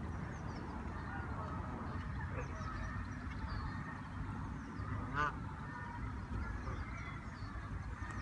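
Canada geese calling: short scattered honks, with one louder honk about five seconds in, over a steady low rumble.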